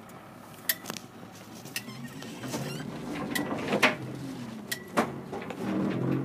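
A 1968 GMC 4903 coach's diesel engine running under way, heard from inside the cab, growing louder about two seconds in. Several sharp knocks and rattles from the old bus's cab sound over it.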